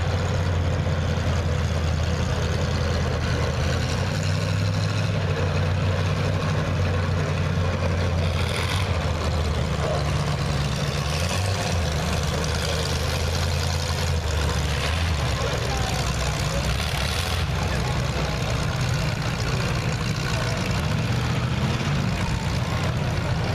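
Several race cars' engines idling and running at low speed as the cars roll slowly into position, a steady low drone.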